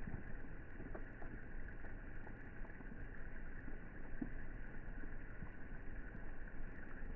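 Rain falling into a swimming pool: a steady, muffled wash of water noise with scattered soft drop sounds.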